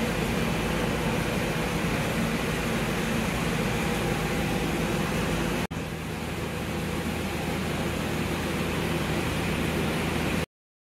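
Twelve-year-old belt-driven, air-cooled twin-cylinder reciprocating air compressor running with a steady hum. There is a brief break about halfway through, and the sound cuts off abruptly near the end.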